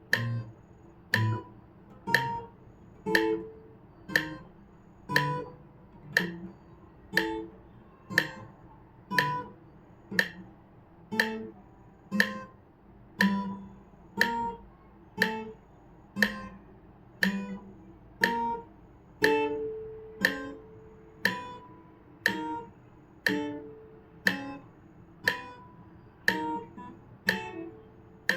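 Guitar playing a slow left-hand dexterity exercise: single plucked notes on an even 60 BPM beat, about one a second, each ringing and dying away before the next.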